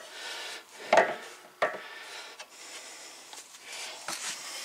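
Pliers working a threaded PVC fitting: plastic and metal scraping and rubbing, with two sharp clicks about a second in, just over half a second apart.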